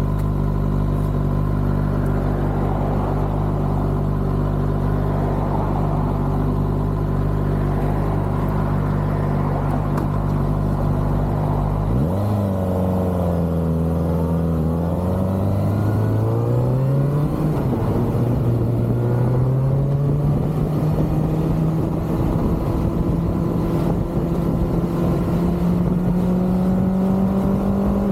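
Kawasaki ZX-6R's inline-four engine running at a steady, even speed, then about twelve seconds in the revs rise and dip through a gear change before climbing slowly and steadily as the bike accelerates.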